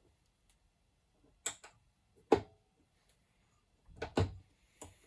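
A few separate clicks and knocks from metal workshop equipment being handled. The loudest comes about two seconds in and has a brief ring, and a cluster of thuds follows near the end.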